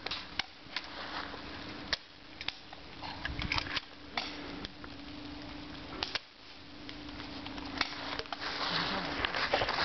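Airsoft guns firing scattered single shots: sharp pops and clicks, irregularly spaced, over a faint steady hum.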